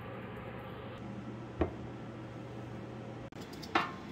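Kitchen room noise with a steady low hum and a single knock about a second and a half in. Near the end, a peeled potato piece hits a metal baking tray with a short clack that rings briefly.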